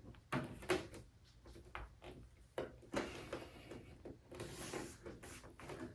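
Hands pressing the clips of a rubber firewall-to-hood seal into a 1966 Ford Mustang's firewall: a series of irregular knocks and clicks, with a brief rustle of the rubber near the middle. The clips are hard to push home.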